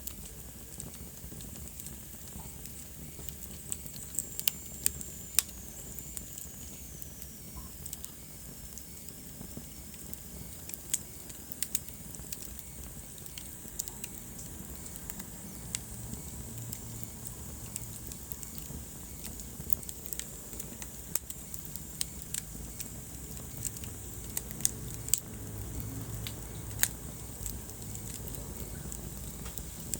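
Wood fire burning in a fireplace: a steady low rumble of the flames with irregular sharp crackles and pops throughout, and a faint high whistle that falls in pitch a few seconds in.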